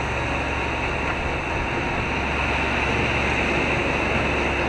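Steady rushing of wind and water aboard a sailing yacht under sail in a fresh breeze of 18 to 22 knots, with a low steady hum underneath.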